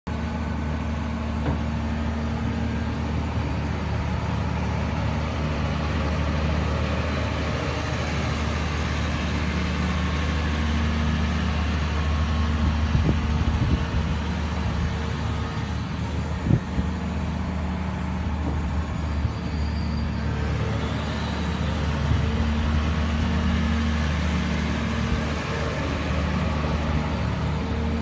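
Doosan DX300LC tracked excavator's diesel engine running steadily as the machine moves about on its tracks, with a couple of sharp knocks, about thirteen and sixteen seconds in.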